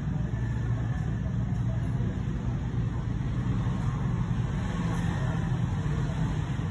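Steady low rumble of background noise, even throughout, with no distinct events.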